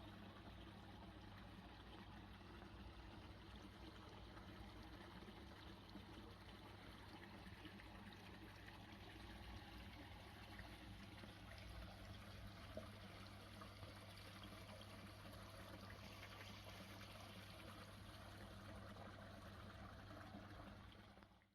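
Faint, steady trickle of water running into a koi pond, with a low steady hum underneath; it cuts off suddenly at the end.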